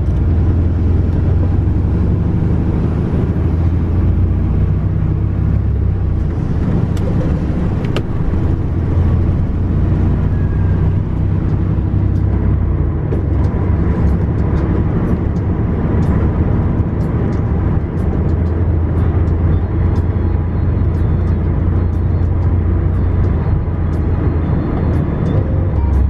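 Truck engine and tyre noise heard from inside the cab while driving, a steady low drone. Scattered small ticks come in over the second half.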